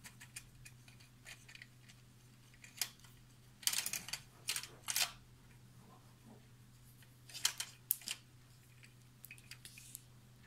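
Cat batting at a dangling toy: irregular bursts of short, sharp rustles and clicks, loudest in two clusters around the middle and the later part, over a faint steady hum.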